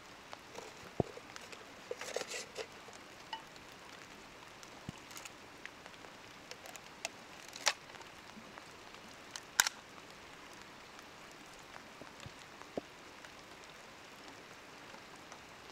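Scattered sharp clicks and taps, spaced irregularly a second or more apart, over a faint steady hiss. The loudest come about halfway and about two-thirds of the way through.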